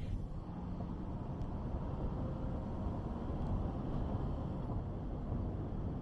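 A car driving along an asphalt road: a steady low rumble of tyre and engine noise.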